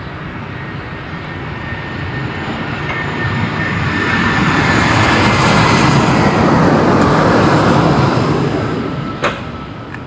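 Loud engine noise of something passing by, swelling over a few seconds, holding, then fading away, with one sharp click near the end.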